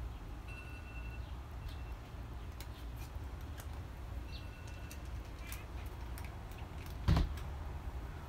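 Cat crunching dry kibble: scattered faint clicks over a steady low rumble, with a short high tone twice and a single thump about seven seconds in.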